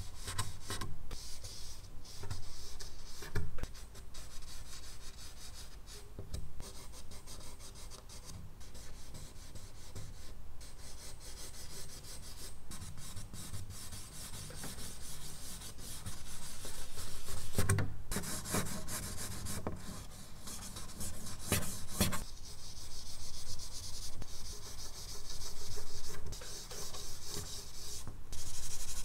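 Charcoal stick scratching and rubbing across medium-surface drawing paper in uneven back-and-forth strokes, some harder and louder than others.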